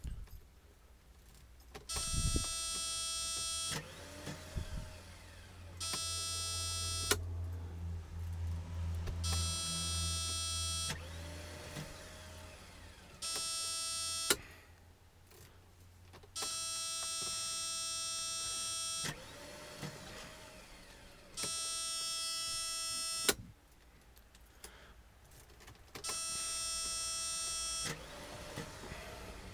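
A steady electric buzz from a car that will not start, coming in spells of one to three seconds, seven times over, with a short low rumble partway through.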